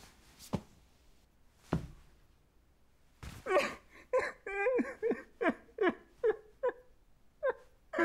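Two soft thumps, then a man sobbing: a run of short, gasping, pitched cries, about two or three a second, from about three seconds in.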